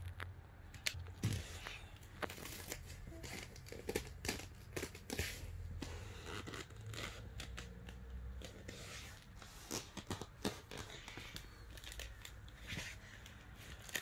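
Irregular plastic clicks, rattles and scrapes from a battery-powered remote-control dinosaur toy as it moves and is handled, over a faint low hum.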